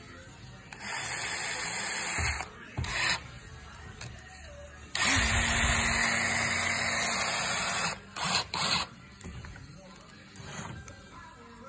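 Festool Quadrive cordless drill's motor run in a series of trigger pulls: a run of about a second and a half, a short blip, then a longer run of about three seconds with a steady hum, and a few quick blips after it. The drill is running again after its shorted electronic switch module was replaced.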